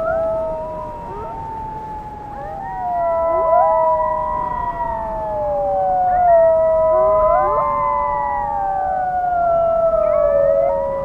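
A pack of wolves howling in chorus: several long howls overlap, each gliding slowly up and down in pitch, with short quick rising calls in between.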